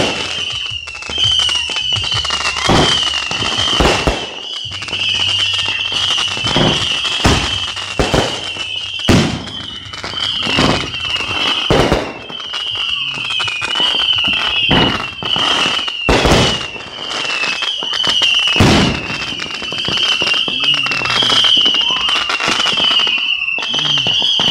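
Fireworks going off: a rapid, irregular string of loud bangs and pops with crackle. A continuous high warbling tone runs behind them.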